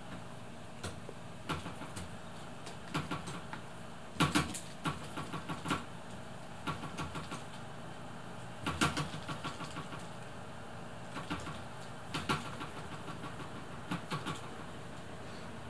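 Clusters of quick light clicks and taps as a cat bats at a thin play stick, the stick knocking against the rattan chair, several times in bursts, over a steady low background hum.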